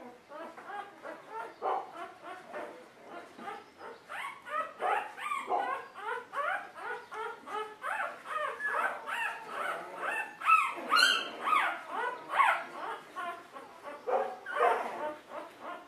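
Litter of newborn golden retriever puppies squeaking and whining: short high calls that slide in pitch, several a second and overlapping, loudest a little past the middle.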